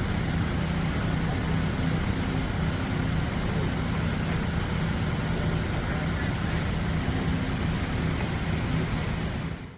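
Fire truck sound effect: a heavy vehicle engine running with a steady low hum amid dense street noise, fading out quickly at the very end.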